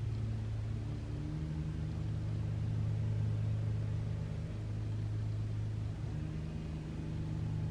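A low, steady hum made of a few held deep tones that shift in pitch every few seconds.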